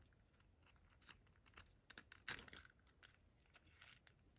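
Faint, scattered clicks and taps of hard plastic, the loudest a little past halfway: a plastic action figure's nunchuck accessory being handled and pushed into place on the figure.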